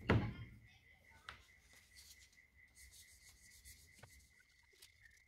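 Hand wiping overspray off a freshly airbrushed resin stick bait lure: soft, faint rubbing with a few light clicks, after a knock right at the start. A faint steady high tone runs underneath.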